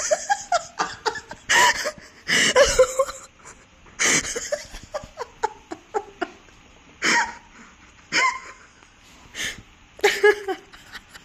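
Laughter in repeated short, loud bursts with pauses between them, some of it coming through a phone's speaker on a video call.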